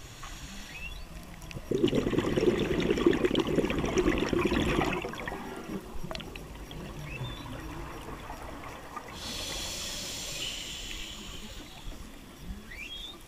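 Scuba diver's regulator breathing: a loud rush of exhaled bubbles from about two seconds in for roughly three seconds, then a hiss of inhalation around nine seconds in. Faint humpback whale calls, short rising whoops, carry through the water between breaths.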